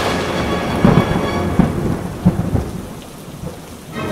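Thunderstorm: thunder cracking and rumbling over steady rain, with sharp claps about a second in and again around a second and a half and two and a half seconds in, then dying down near the end.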